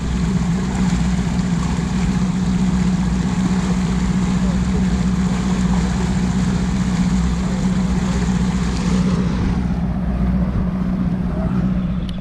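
Motorboat engine running steadily with a constant low hum, with wind and water rushing past as the boat runs across the bay. It starts and stops abruptly.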